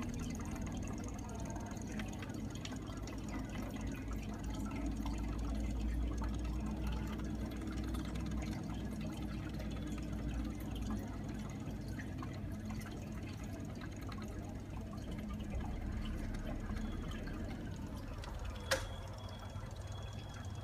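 Aquarium water trickling steadily from the tank's filter, with a single sharp click near the end.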